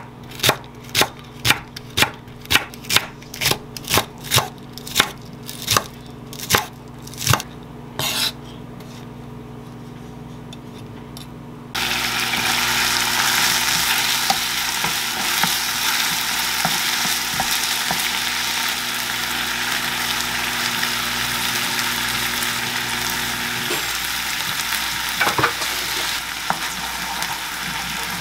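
A chef's knife chopping green onion on a wooden cutting board, about two chops a second, for the first eight seconds. After a short quieter gap, sliced chicken breast and green onion start sizzling in a frying pan and keep sizzling as a spatula stirs them.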